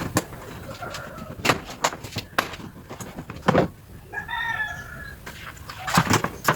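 Irregular clicks and knocks of plastic car trim and tools as a seatbelt cover panel is prised off. A bird calls once in the background, about a second long, a little past the middle.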